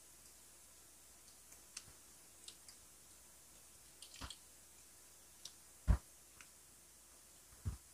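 Close-miked mukbang eating sounds: sparse wet mouth clicks and chewing of grilled Filipino street food, with a single dull thump about six seconds in.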